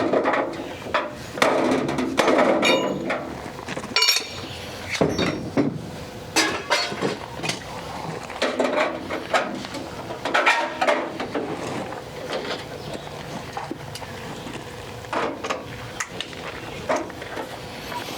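Irregular knocks, taps and metallic clinks from sheet-metal gutter work, some with a short ringing tail.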